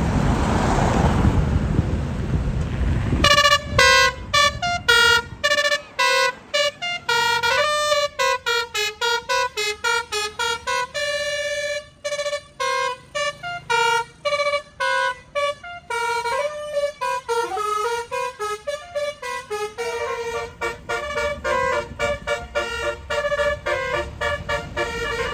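A tour bus's telolet basuri musical horn playing a fast melody of short, clipped notes that jump up and down in pitch, starting about three seconds in after a rushing noise.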